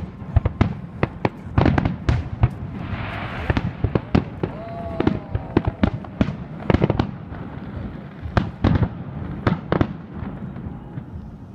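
Fireworks display: a rapid, irregular series of bangs from exploding shells, with a brief hiss about three seconds in.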